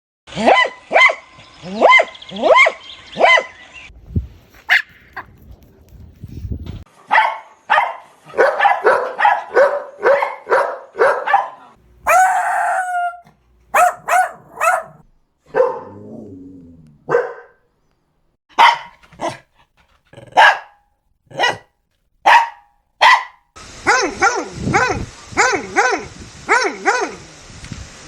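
Dogs barking loudly in a string of separate clips: runs of quick repeated barks, a few a second, with short gaps between clips and different dogs' voices.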